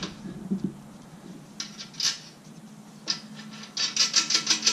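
Steel parts of an engine hoist clinking and scraping as a support arm is fitted onto the base and its bolt hardware handled, with a few separate knocks and then a quick run of small metal clicks near the end.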